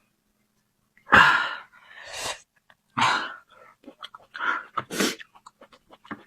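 Close-up mouth and eating sounds: after a second of quiet, five loud noisy bursts of breath or bites, with many small wet clicks of chewing in between.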